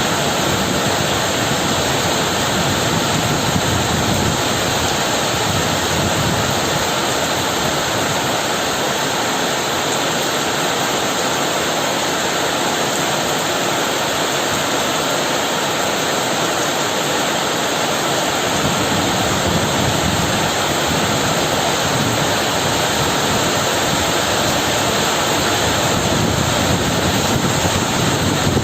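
Heavy rain falling steadily, with a low rolling rumble of thunder underneath that eases around the middle and builds again in the second half.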